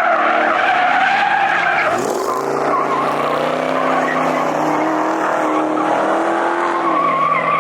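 A car spinning its tyres at high revs: a loud, sustained tyre screech over a revving engine. The engine's pitch swoops and then holds about two seconds in.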